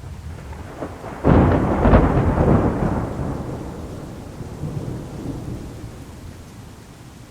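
Close thunder: a sudden sharp crack about a second in, followed by rumbling that slowly dies away over several seconds, with rain falling steadily.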